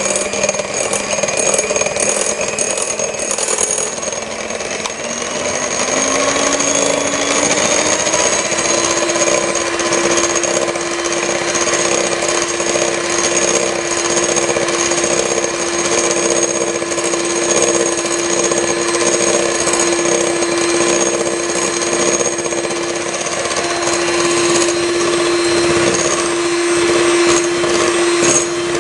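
Electric hand mixer running with its beaters whipping eggs, sugar and emulsifier in a glass bowl for a sponge-cake batter. The steady motor whine steps up in pitch twice, about five and eight seconds in, then holds.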